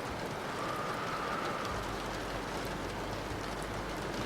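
Steady rain falling: an even patter with faint scattered drop ticks.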